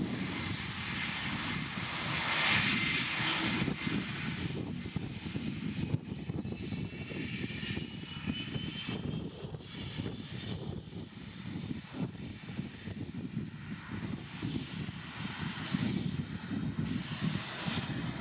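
Jet airliner's engines running, a steady rushing noise with a high whine over it, loudest about two to three seconds in and then slowly easing off.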